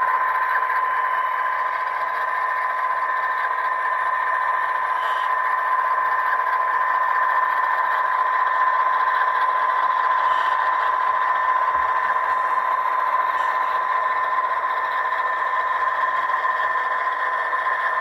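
Model diesel locomotives running along the track: a steady, even whine with a light rattle and a few faint clicks.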